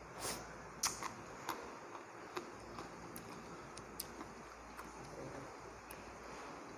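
Quiet eating sounds: a few faint, scattered clicks and taps, about one a second, from a slice of green fruit being dipped in a bowl of sauce and lifted to the mouth.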